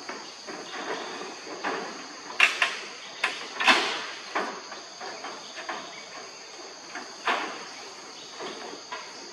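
Macaques scuffling and wrestling on a corrugated metal roof: knocks and scrapes of hands, feet and bodies on the sheet metal, loudest in a cluster about two and a half to four seconds in, with one more knock near seven seconds. A steady high insect drone runs underneath.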